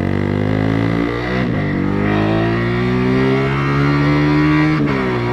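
125cc cruiser motorcycle engine pulling under acceleration, its pitch climbing steadily, then dropping sharply at a gear change shortly before the end.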